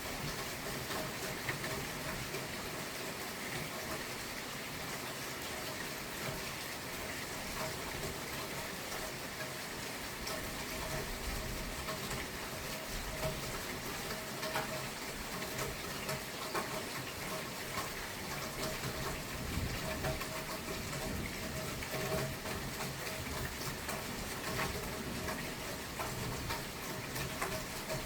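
Steady heavy rain during a thunderstorm, a continuous rushing hiss with scattered sharp taps of drops striking nearby surfaces.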